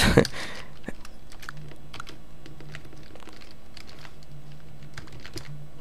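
Computer keyboard being typed on: irregular key clicks as a name is typed out letter by letter.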